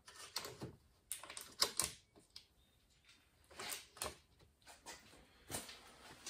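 Light, irregular clicks and taps of small steel rivets being handled and set into the holes of a car window regulator's metal rail.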